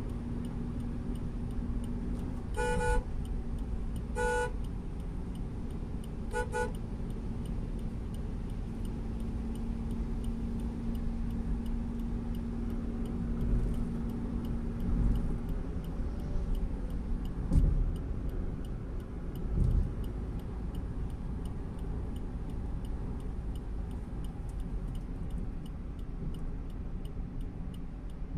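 Steady road and engine rumble inside a moving car's cabin, with a steady hum that stops about halfway. A vehicle horn honks three times early on, the last two short, and two dull thumps come past the middle.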